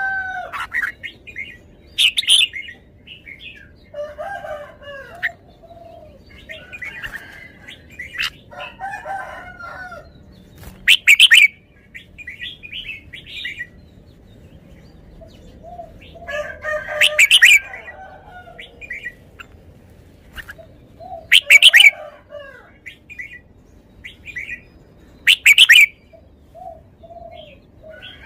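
Red-whiskered bulbul singing: loud, sharp phrases every four to six seconds, with softer warbling notes between them.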